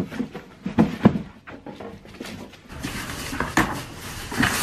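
Clicks and knocks of a box being handled, then a steady hiss with a few sharp clicks and rustles from about two and a half seconds in.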